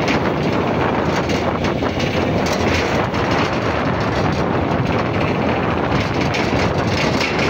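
Steady road traffic noise: an even rushing of vehicles and tyres on the road, with no distinct engine note or horn standing out.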